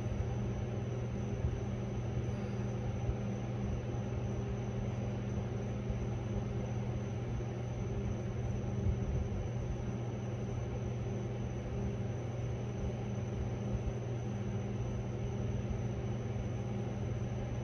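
Steady engine and road rumble heard from inside a pursuing patrol car, with a constant low hum under it.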